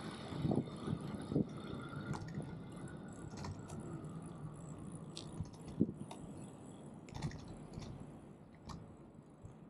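Ride noise from a Brompton Electric folding bike on the move: a steady low rumble with scattered light clicks and rattles and an occasional knock.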